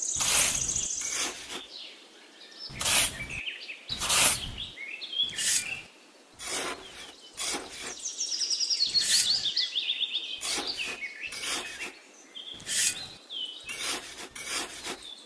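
A small trowel scraping and digging through dry sand in a series of short, gritty strokes. Birds chirp over it, with a quick run of high chirps in the middle.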